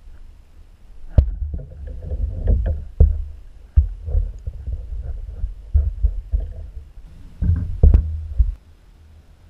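Knocks and bumps in a canoe, several sharp ones a second or so apart, over a low rumble; it all stops suddenly about a second before the end.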